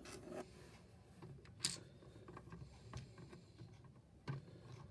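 Faint handling of plastic construction-toy pieces as a small hinged clear plastic door on a block-built dispenser is worked by hand, with a sharp plastic click about a second and a half in and a soft knock near the end.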